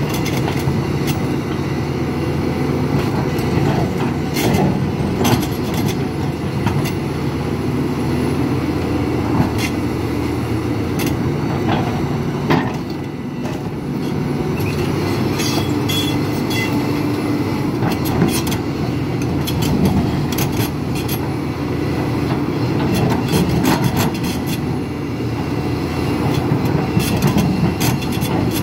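The diesel engine of a 50-tonne Hidromek HMK 500LC excavator working steadily under load as its single-shank ripper tooth tears through rock, with frequent sharp cracks and clatters of breaking stone and steel on rock.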